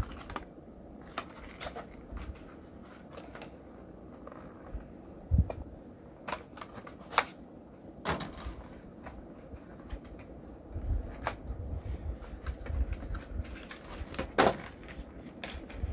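A doll's cardboard box being handled and opened: scattered clicks, taps and rustles at irregular times, with low bumps of handling noise clustered in the middle and later part.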